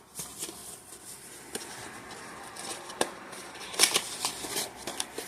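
Hands handling a small plastic accessory box and packaging: light rustling with scattered clicks and taps, a few sharper ones about three and four seconds in.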